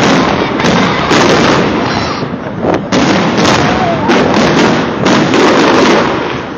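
Aerial fireworks shells bursting in quick succession, loud, the bangs following one another with barely a pause.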